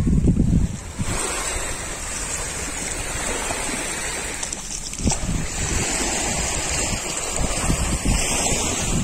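Sea waves washing onto a sandy beach, with wind rumbling on the microphone.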